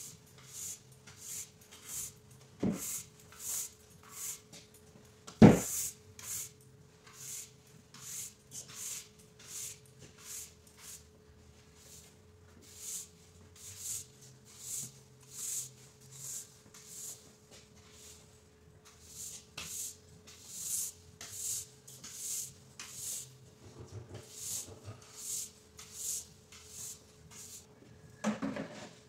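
Stiff floor brush scrubbing a vinyl tile floor in short, even back-and-forth strokes, a bit over one a second with a few brief pauses. Two sharp knocks in the first six seconds, the second the loudest sound, and a faint steady hum underneath.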